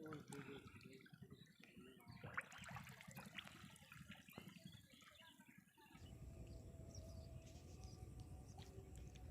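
Faint splashing and trickling of water, with small irregular drips and crackles; about six seconds in it gives way to a steady low rumble.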